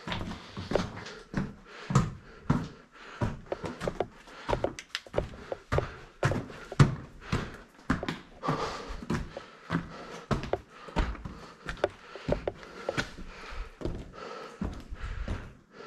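Footsteps over a rocky, gravelly cave floor: irregular knocks and scuffs of boots on stone, a few a second.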